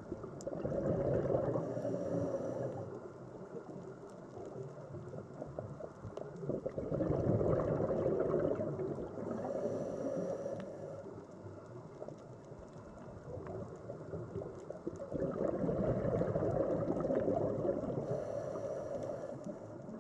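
Scuba diver breathing through a regulator underwater: three long swells of gurgling exhaled bubbles, each with a brief high hiss, repeating about every eight seconds.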